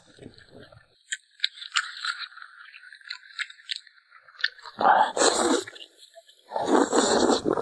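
Close-up eating sounds: chewing and crunching food with small wet mouth clicks, then two louder stretches of chewing about five and seven seconds in.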